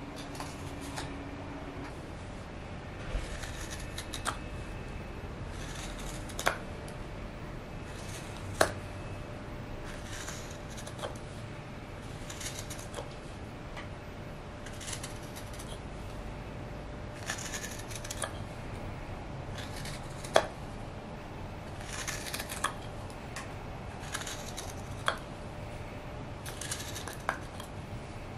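Hook knife carving out the bowl of a birch kuksa blank: repeated short scraping cuts through the wood, with now and then a sharp click as a cut breaks free.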